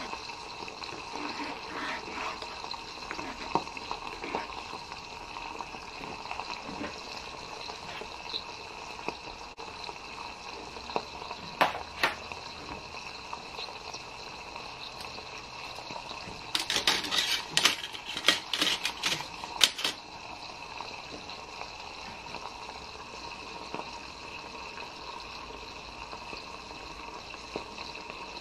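Milky soup bubbling at a steady simmer in a small metal pot over an alcohol stove. A run of sharp clicks and pops lasts about three seconds a little past the middle.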